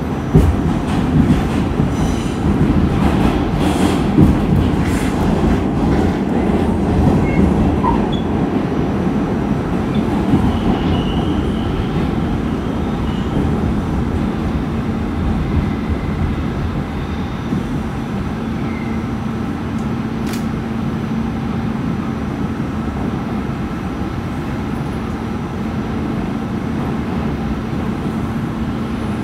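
Inside an R46 subway car running through the tunnel: a loud, steady rumble of steel wheels on the rails. Sharp clatter over rail joints and switches comes in the first several seconds, then the car settles into a smoother run with a steady low hum and brief faint wheel squeals.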